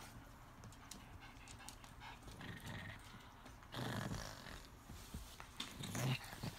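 Two Japanese Chin dogs growling and panting as they tussle over a chew stick, with a louder growl a little past halfway through and a short one near the end.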